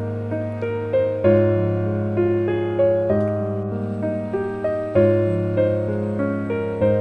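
Background music: a gentle piano tune with soft notes struck every half second or so over a steady low bass note.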